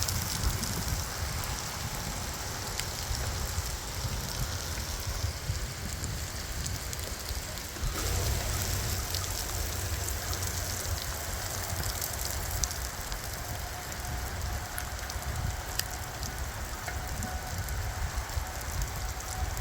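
Heavy thunderstorm rain falling steadily, big drops ticking and spattering on surfaces, over a low rumble.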